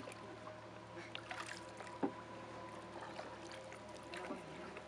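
Wooden canoe paddle dipping and pulling through river water, with soft splashes and water trickling off the blade, and a single knock about two seconds in. A faint steady hum sits underneath.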